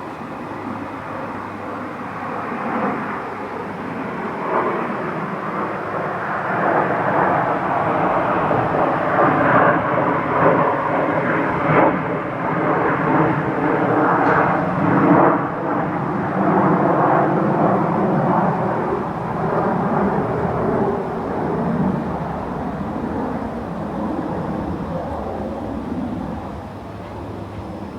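An airplane passing overhead: a broad engine rumble with faint, slowly gliding tones that swells over the first several seconds, holds, then fades away near the end.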